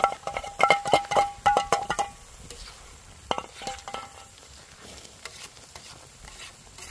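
Metal utensils clinking and scraping against a large iron tava while onion-tomato masala paste and spices fry in oil. A quick run of sharp, ringing clinks fills the first two seconds, a few more come about three and a half seconds in, and then comes softer stirring over a low sizzle.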